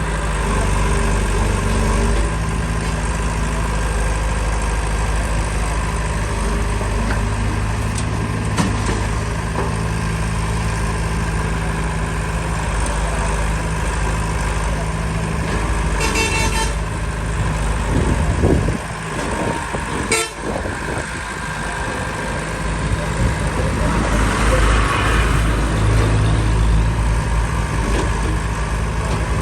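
Heavy vehicle engine running steadily, changing in load partway through, with a vehicle horn sounding.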